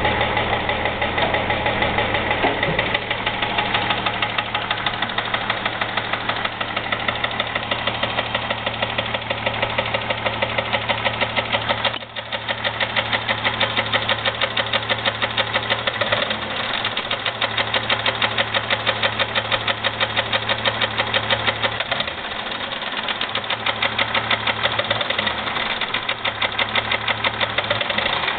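2001 Jeep Grand Cherokee's 4.0-litre straight-six running with a steady, rhythmic knock that came on suddenly, which the owner takes for either piston slap or rod knock.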